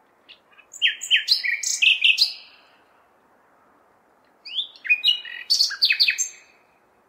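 Nightingale singing: two song phrases of rapid, repeated sharp notes and short whistles, each about two seconds long, with a pause of about two seconds between them. A faint steady city hum lies underneath.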